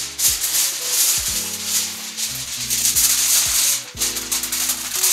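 Aluminium foil crinkling and rustling as it is spread over a baking pan and pressed down around the edges, over background music.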